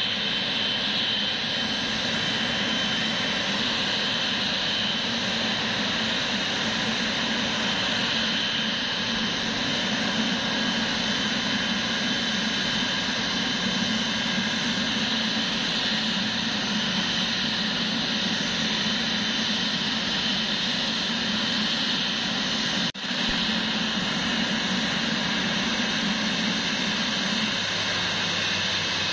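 Boeing 777-300ER's GE90 jet engines running steadily, a dense rushing noise with a high whine over it. The sound cuts out for a moment about three-quarters of the way through, then resumes.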